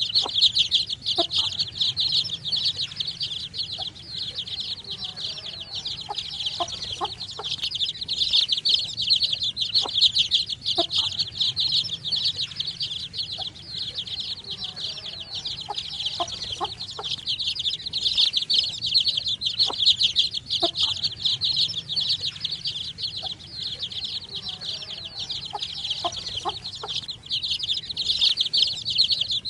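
A brood of baby chicks peeping together: many short, high-pitched chirps overlapping in a dense, continuous chorus, swelling and easing in loudness every several seconds.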